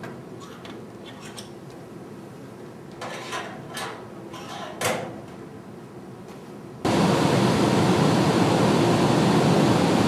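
A few faint handling knocks as a magnetic static pressure probe is repositioned on an air-handler cabinet. About seven seconds in, a loud, steady rush of air from the running HVAC blower starts suddenly and cuts off near the end.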